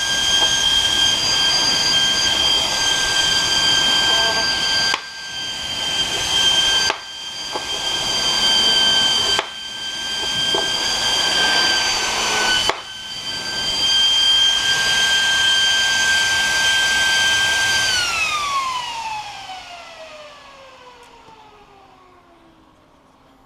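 High-speed 12-volt server cooling fan running at full speed: a loud, steady high-pitched whine over a rush of air, dipping in level a few times. About 18 seconds in it is switched off, and the whine glides steadily down in pitch and fades as the rotor spins down.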